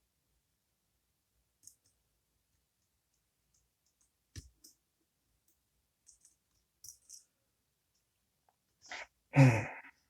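Sparse faint clicks of a lock pick working the spool pins of a Goal Z pin-tumbler lock under tension, then a single louder brief noise about nine seconds in.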